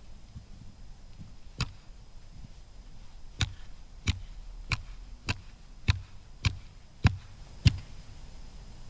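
An ice chisel (tuura) striking lake ice: a single blow, then eight sharp chops at an even pace of a little under two a second, as the ice is tested.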